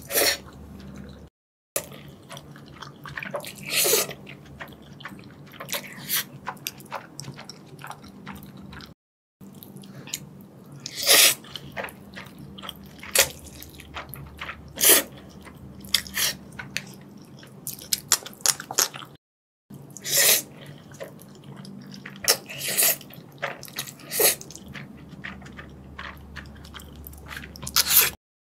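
Close-up eating of black bean noodles: repeated loud slurps as strands are sucked in, with wet chewing and small mouth clicks between them. The sound drops out for a moment at a few edits.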